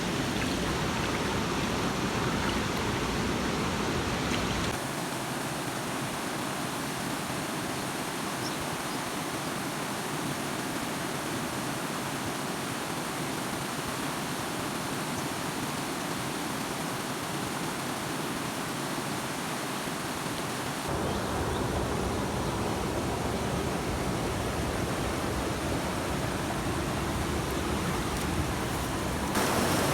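Steady rushing of flowing water, like a stream or small waterfall. Its tone changes abruptly about five seconds in, when the deep part drops away, and again about twenty-one seconds in, when it returns.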